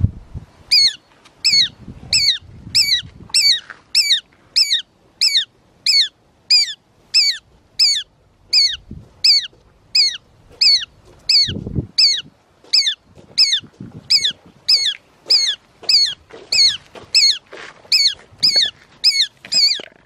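Shikra calling over its prey: a high, down-slurred note repeated evenly about one and a half times a second. Now and then a low rustle of wings and dry leaves as the hawk shifts over the captured buttonquail.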